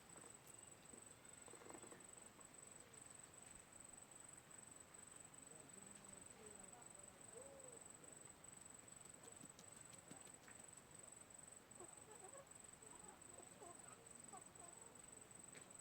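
Near silence: faint outdoor ambience with a steady high insect trill and faint scattered chirps that grow more frequent about halfway in.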